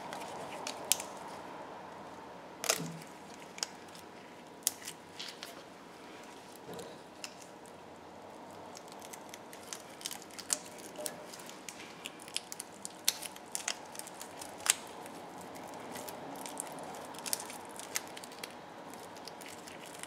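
Electrical tape and wire insulation being cut and peeled off a wire by gloved hands: scattered small clicks, snips and crinkles, irregular throughout, over a faint steady hum.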